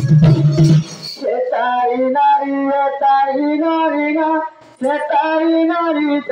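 A dhol-led percussion ensemble plays for about a second and then stops. A lone singer carries on unaccompanied through a microphone and PA, with a short pause for breath about four and a half seconds in. The drum comes back in right at the end.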